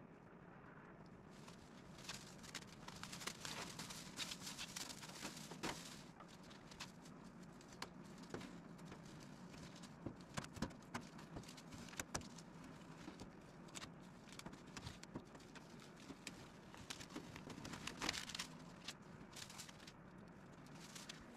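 Masking tape and masking paper being peeled off a car's freshly painted body and bunched up: intermittent crinkling and tearing with scattered sharp clicks, coming in bursts, the busiest a couple of seconds in and again near the end.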